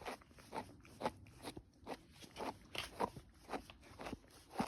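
A dog crunching and chewing a treat it has just been given, with short crisp crunches about twice a second.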